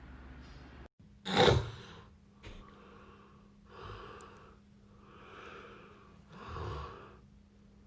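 A sudden loud burst of breath about a second and a half in, then slow, noisy breaths about once a second, over a steady low hum.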